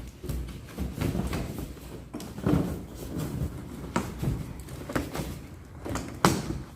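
Irregular clicks and knocks of hands working a balloon stand and its balloons, about a dozen sharp taps spread over several seconds.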